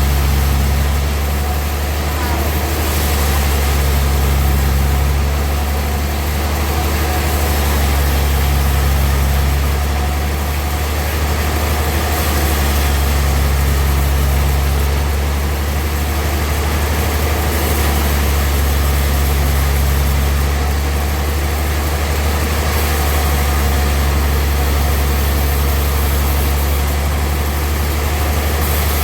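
Sawmill machinery running steadily, a deep engine hum with a noisy wash above it, its loudness swelling and easing every few seconds.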